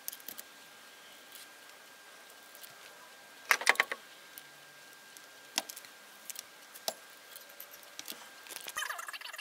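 Small steel parts of a hand brace being worked by hand: a quick run of sharp metal taps from a small hammer about three and a half seconds in, the loudest sound, then a few single clicks a second or so apart, and handling rustle near the end.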